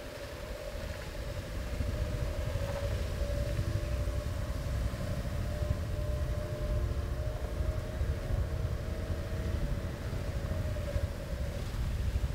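A vehicle on the move: a steady low rumble of engine and road, with a faint steady hum above it, swelling over the first couple of seconds.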